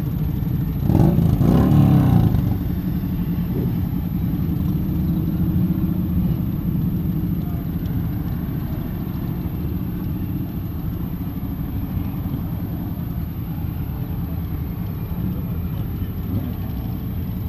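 Motorcycle engines running close by, a steady low rumble, with a louder motorcycle accelerating away about a second in, its pitch bending up and down.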